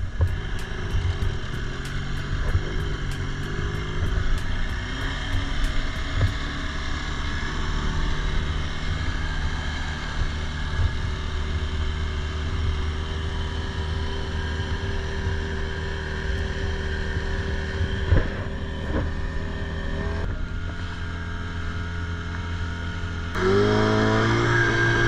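Small boat's motor running steadily underway, with water and wind hiss. Near the end the throttle is opened and the engine note rises and gets louder.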